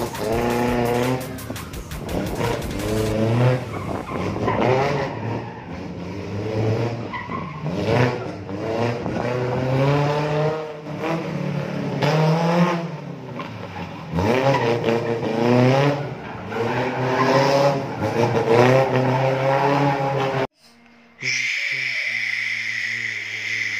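Suzuki pickup's engine revving hard again and again, the pitch climbing and falling with each burst, as it is thrown around a slalom course with tyres squealing. A short break in the sound comes about twenty seconds in; after it, a steady high tyre squeal.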